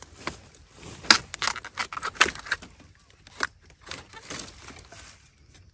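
Dry bamboo stems and twigs crackling, clicking and snapping as a hand pushes through a wild bamboo clump, in an irregular run of sharp clicks with a couple of louder cracks about a second and two seconds in.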